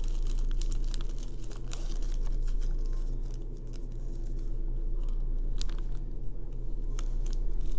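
Crinkling and light clicking of small plastic bags of rhinestone crystals being handled and sorted, with scattered short clicks throughout, over a steady low hum.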